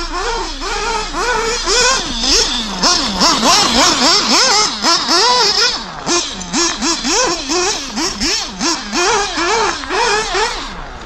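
Two-stroke glow-fuel engine of a nitro RC buggy (FX engine) screaming at high revs, its pitch swinging sharply up and down about twice a second as the throttle is blipped and released.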